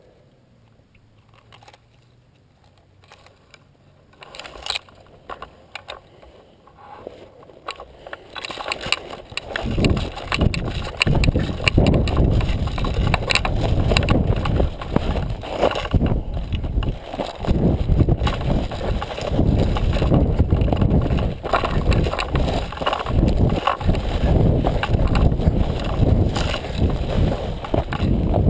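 Rustling and crunching of brush, twigs and dry leaves as a person moves through undergrowth, with heavy rumbling movement noise on the GoPro's microphone. Faint scattered rustles at first, turning loud and continuous about nine seconds in.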